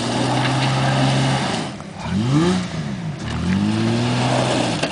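Toyota Tacoma pickup's engine revving hard under load as the truck strains in a rut of loose gravel: held high for about two seconds, dropping, a quick rev up and down, then held high again until it drops near the end.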